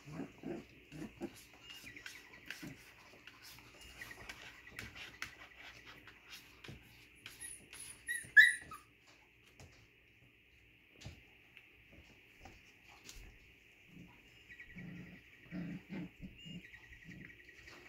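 A litter of doodle puppies playing and wrestling, with short low grunts and whimpers, paws scratching on the bedding, and one sharp yelp about eight seconds in.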